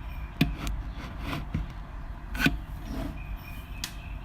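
Scattered sharp clicks and soft taps from hands handling things at close range, about half a dozen spread unevenly, over a faint steady hum.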